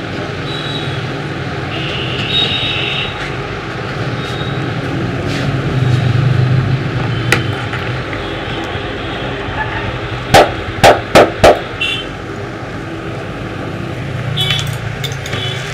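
Steady traffic noise with a low engine hum. About ten seconds in come four loud, sharp hand slaps in quick succession, the percussive slapping of a head massage.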